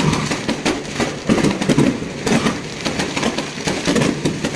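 Fireworks going off close by in quick succession: a dense, irregular stream of bangs and crackles from rockets and firecrackers.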